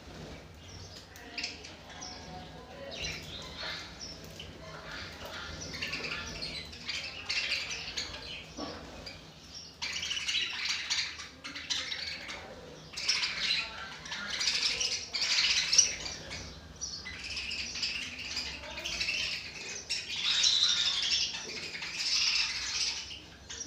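A flock of pet lovebirds chirping and chattering continuously, many high calls overlapping, growing louder and busier about halfway through.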